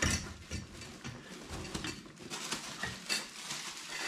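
Handling noise as a cloth stuff sack is turned over and opened: rustling with scattered small clicks and light clinks from the metal parts of the small wood-burning camp stove inside it.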